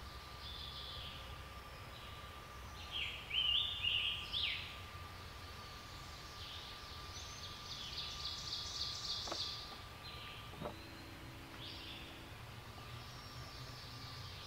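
Several songbirds singing in a spring forest, with separate phrases throughout. The loudest phrase comes about three to four seconds in, and a rapid trill of quickly repeated notes follows around eight seconds in. A faint steady high tone runs underneath.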